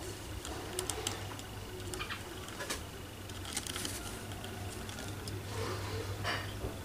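Ring-necked dove moving about on a wooden cage perch: a few short scratchy flutters and taps, one of them a wing flap, over a low steady hum.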